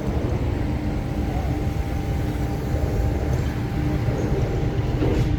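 Steady low rumble with a faint, even hum.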